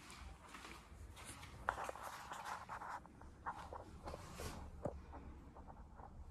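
Faint footsteps on a hard floor with soft rustling and a few sharp clicks and knocks.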